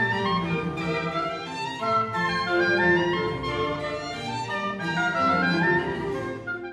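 Instrumental background music on bowed strings, a violin melody over lower strings, beginning to fade out near the end.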